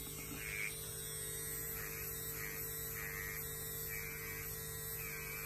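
Dragonhawk Mast Tour Pro rotary tattoo pen running at 8 volts, a steady electric hum, driving a large 27-needle cartridge that it cannot move at 7.7 volts.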